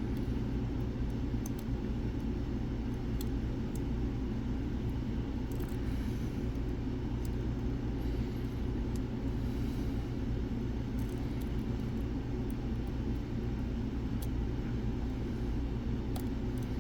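Steady low background rumble and hum, with scattered faint light clicks of lock picks working the pins of a Mul-T-Lock-style dimple lock.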